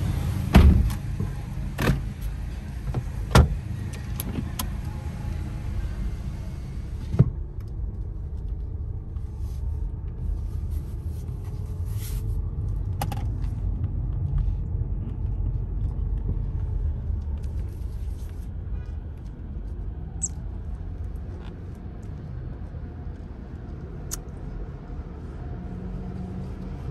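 Inside a car creeping forward at low speed: a low steady hum with a few sharp clicks and knocks early on. About seven seconds in the outside noise cuts off abruptly as the power window finishes closing, leaving the quieter hum of the closed cabin.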